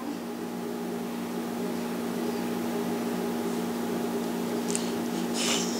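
Steady machine hum in a small room, a constant low drone with no words over it, and two faint short high sounds near the end.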